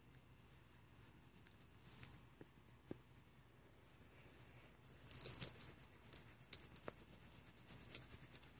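A dog's collar tag jingling and clicking as the small dog squirms on its back during a belly rub, with soft scratching of a hand on fur. The clinking is faint and scattered, with a busier flurry about five seconds in.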